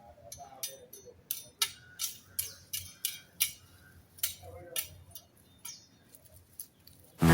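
A bird chirping: a quick, irregular series of short, sharp chirps, some falling quickly in pitch.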